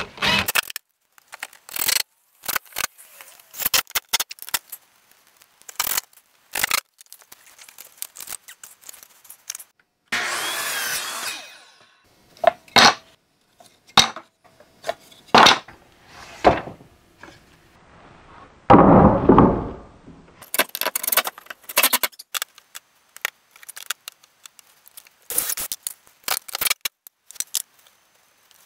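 A string of short, cut-together woodworking sounds: a cordless drill driving screws through a window frame, a power mitre saw cutting trim boards, and sharp knocks and clatter of wood.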